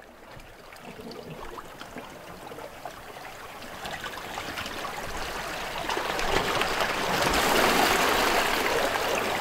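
Seawater trickling and lapping around an oyster-covered rock. It fades in from quiet and grows steadily louder.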